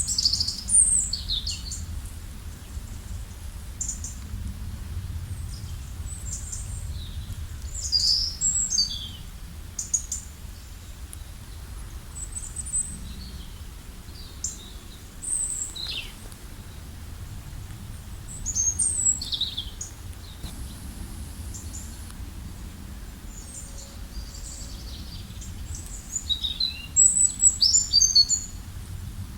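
Wild birds chirping and singing in short, scattered phrases of quick high notes and downward sweeps, with a few louder bursts about a second in and near the end. Underneath runs a steady low background rumble.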